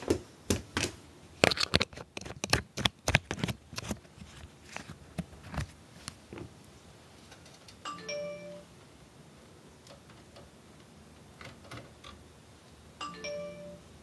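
A quick run of sharp clicks and clatters in the first few seconds, then a short two-note electronic chime, heard twice about five seconds apart.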